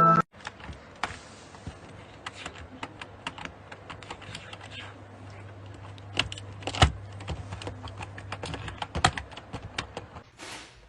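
Many light, irregular clicks and taps, a few of them louder, over a faint steady low hum.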